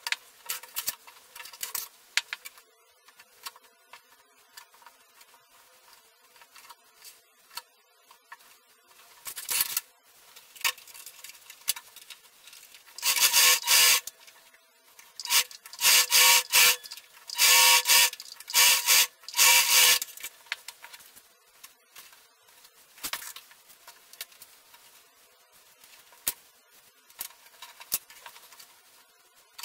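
Singer domestic sewing machine running in several short stitching runs, mostly in the middle stretch, with quiet fabric handling in between.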